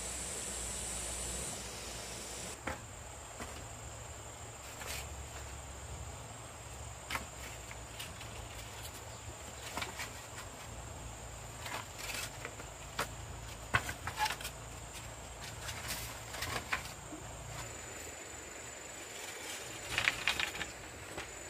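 Scattered light clicks and knocks, coming irregularly and bunching together about twenty seconds in, over a steady high-pitched insect drone.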